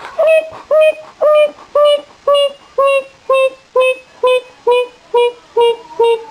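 Donkey braying: a long run of rhythmic hee-haw calls, about two a second, the high notes slowly dropping in pitch.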